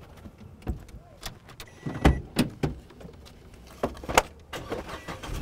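Car passenger door being opened and a person climbing into the seat: a string of clicks and knocks, the loudest about two seconds in and again about four seconds in.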